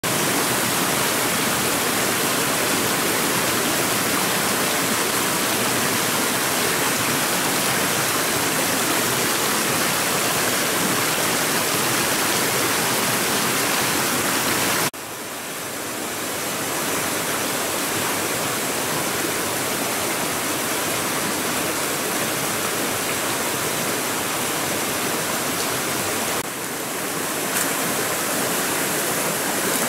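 Shallow rocky stream running, a steady rush of water. The level drops suddenly about halfway through and again near the end, then builds back.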